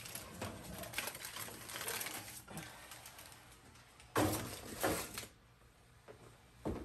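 Foil-covered baking pan drawn out on the oven rack with rustling and scraping, then set down on the gas range's stovetop grates with two loud clanks about four and five seconds in, and a short knock near the end.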